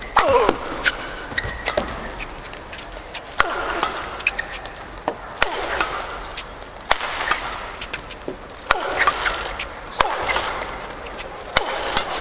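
Badminton rally: rackets striking the shuttlecock in sharp cracks about once a second, with court shoes squeaking on the floor in between.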